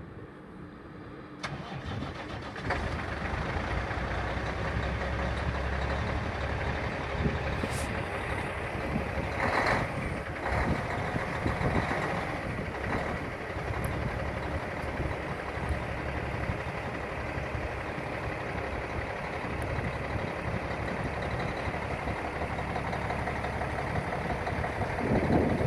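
A 2006 Peterbilt 379's diesel engine cranks and catches about two seconds in, then idles steadily.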